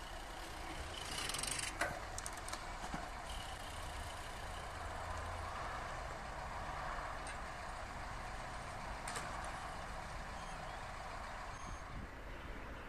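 Cars idling at a railway level crossing while the barrier arms lift, under a steady hum of traffic, with a cluster of sharp clicks about two seconds in.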